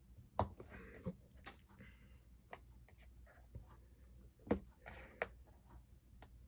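Faint handling of a small cardboard product box by hand: scattered sharp clicks and brief rustles as it is picked at and opened without a knife, the loudest click about four and a half seconds in.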